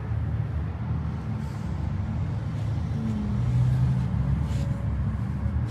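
Steady low rumble of a running motor vehicle engine.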